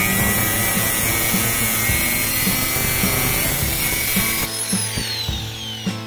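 Angle grinder with a thin cutting disc cutting into flat steel bar, over background music with a steady beat. About four and a half seconds in the cutting stops and the disc's whine falls in pitch as it spins down.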